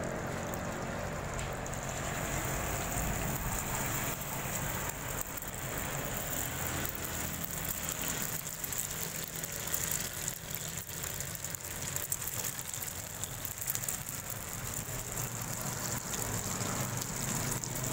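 Oil and egg sizzling and crackling on a large hot iron tawa griddle as an egg omelette fries, over a steady low hum.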